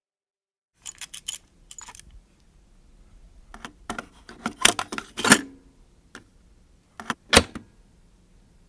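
A plastic cassette is loaded into a cassette deck. A few light clicks come first, then a cassette clattering into its holder with the loudest knocks in the middle, and two sharp clicks near the end as it seats.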